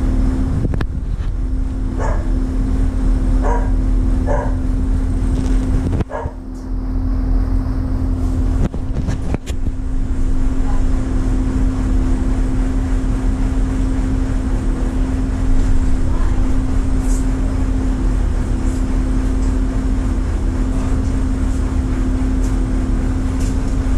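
Cargo ship's diesel engines running, a steady low drone with a constant hum. A few short, sharp sounds rise over it in the first few seconds.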